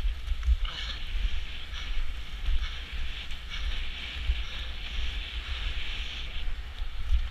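Wind buffeting the microphone of a camera carried by an inline skater at speed, a gusty low rumble, over a steady hiss of skate wheels rolling on rough asphalt.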